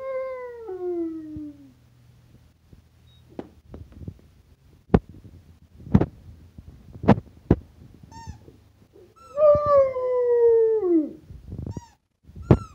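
A Rottweiler howls twice: one long, falling howl at the start and another about nine seconds in, set off by a squeaky toy. Between the howls come short, sharp squeaks from the toy.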